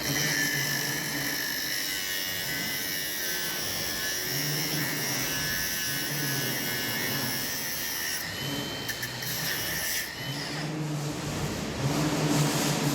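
Small power tool running with a steady high whine, stopping about ten seconds in.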